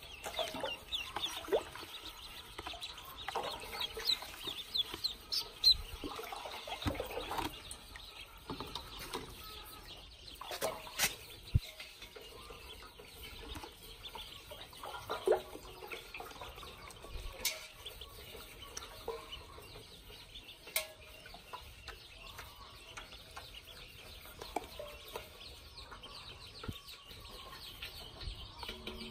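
A group of ducklings peeping: many short, high calls overlapping, busiest in the first several seconds and thinner later on. A few sharp knocks stand out now and then.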